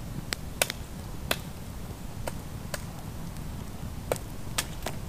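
A knife cutting into a wooden stick as the end of a pot-hanger stake is carved, making about eight short, sharp clicks at uneven intervals.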